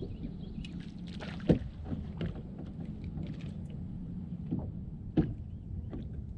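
Water lapping against a bass boat's hull under a steady low hum. Two sharp knocks on the boat break it, the louder about a second and a half in and another about five seconds in.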